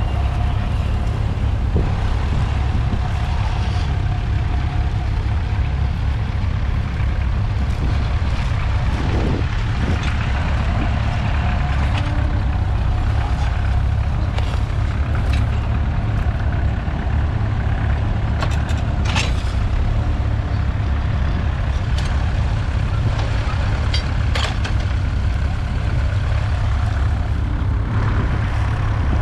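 Ferguson TEF20's 2.1-litre four-cylinder diesel engine running steadily under load while pulling a trailed two-furrow plough through the soil. A few short knocks come through near the middle and later on.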